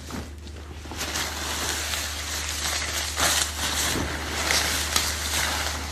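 Loose paper banknotes rustling and crinkling as hands stir through a large pile of naira notes. The rustle swells about a second in and carries on with a few sharper crackles, over a steady low hum.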